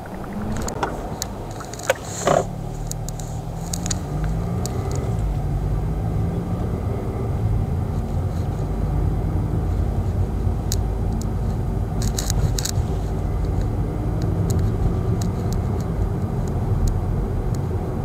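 Kia Seltos driving, heard from inside the cabin: steady low engine and road rumble. The engine note rises in the first few seconds as the car speeds up. A few sharp clicks come about two seconds in and again around twelve seconds.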